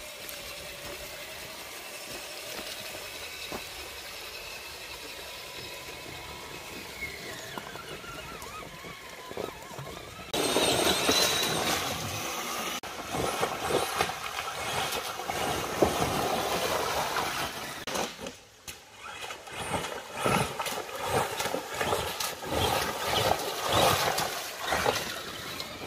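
Traxxas Summit RC monster truck driving through a creek: its electric motor and drivetrain whining, rising and falling in pitch with the throttle, over water churned and splashed by the tyres. It turns suddenly louder about ten seconds in, with heavier splashing and quick throttle surges.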